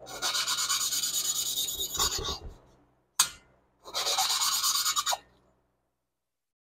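A valve being hand-lapped in a Porsche 912E Type 4 cylinder head: the valve face grinds against its seat through lapping compound as a suction-cup lapping stick is spun rapidly back and forth between the palms. There are two spells of fast gritty rasping, with a single sharp tap between them.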